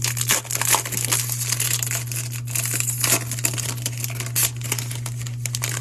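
Foil wrapper of a baseball card pack being crinkled and torn open in dense, irregular crackles.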